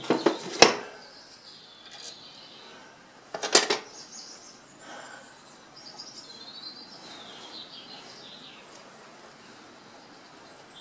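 A few sharp metal clinks in the first second and another short clatter about three and a half seconds in, then birds chirping faintly in the background.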